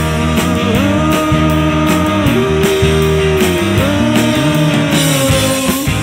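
Rock music, an instrumental passage with long held notes that slide up and down in pitch.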